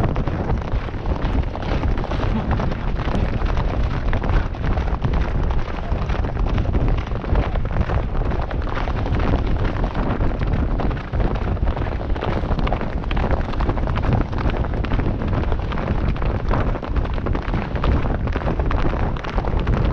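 Heavy wind buffeting on the microphone of an action camera riding on a galloping racehorse, a steady low rumble broken by many quick knocks and thuds from the hoofbeats and the jolting of the camera.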